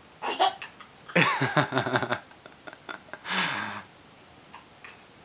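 A person hiccuping, in short sudden vocal bursts: a brief sharp one about half a second in, a longer voiced one with rising pitch after a second, and a breathy one past the three-second mark.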